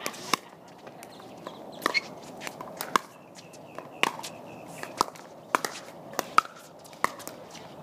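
Pickleball rally: a string of sharp pops as paddles strike the plastic ball and the ball bounces on the hard court, about a dozen in irregular quick succession.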